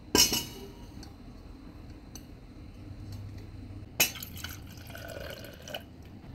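Milk coffee poured from a clear jug into a stainless-steel tumbler, a splashing pour of about two seconds starting about four seconds in. A sharp clink of the tumbler and its lid comes right at the start.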